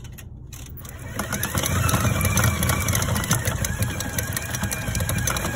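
Commercial 8-quart stand mixer starting up about a second in with a rising whine, then running steadily as its flat paddle beats softened butter in the steel bowl.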